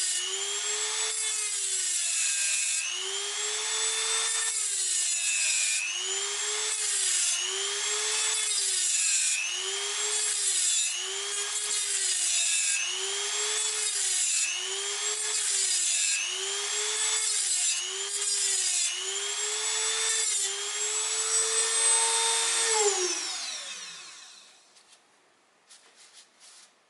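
Dremel rotary multitool with a thin cutting disc cutting through a metal driveshaft boot fastener: the motor's high whine sags in pitch about a dozen times as the disc bites into the metal and picks up again between cuts. Near the end the tool is switched off and winds down with a falling whine, followed by a few faint clicks.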